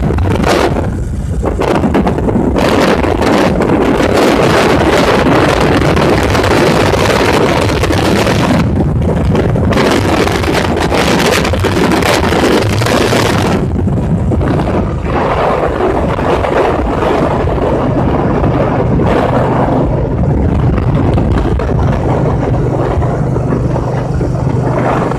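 Wind rushing over the microphone of a moving motorcycle, rising and easing in gusts, over the low steady drone of the motorcycle's engine, which comes through more clearly near the end.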